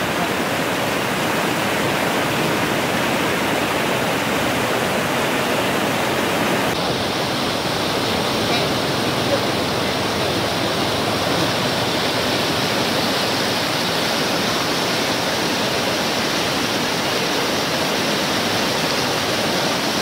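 Floodwater rushing over a low concrete dam spillway: a loud, steady, churning rush of water, a little duller in tone from about a third of the way in.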